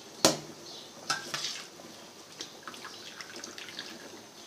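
Rice being tipped into a pot of boiling yakhni (meat stock): splashing and bubbling liquid with a few metal knocks against the pot, the loudest just after the start.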